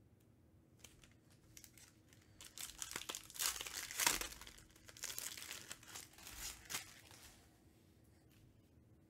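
A 2020-21 Panini Recon basketball card pack's wrapper being torn open and crinkled in the hands, with crackling in bursts. The loudest tear comes about four seconds in, and the rustling dies away about seven seconds in.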